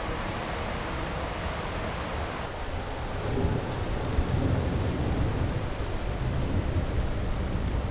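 Thunder rumbling low and long over steady rain, the rumble swelling a little about three and a half seconds in.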